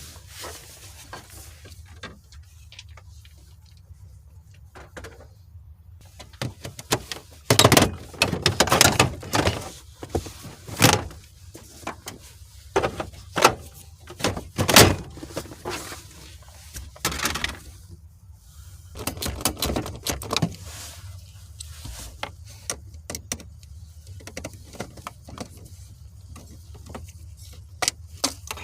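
Irregular clicks, knocks and short scraping or rustling bursts of hands and tools working on parts inside a car's interior, with the loudest clusters around the middle.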